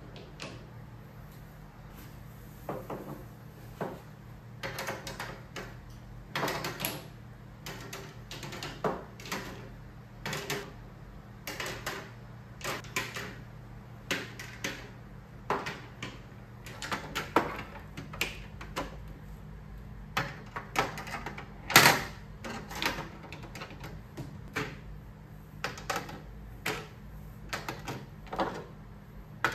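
Plastic nail polish bottles being set one by one into a clear acrylic tiered display rack: irregular clicks and clacks, with one louder knock a little under three-quarters of the way through.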